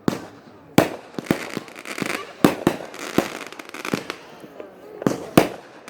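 Consumer fireworks going off: about a dozen sharp bangs at uneven intervals, with crackling between them.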